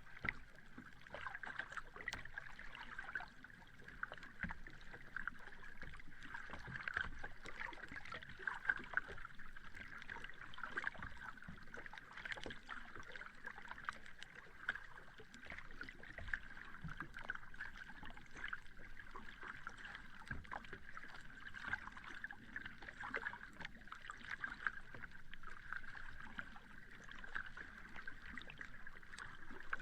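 Sea water lapping gently at the shore: a steady wash of small splashes and crackles with no big breaking waves.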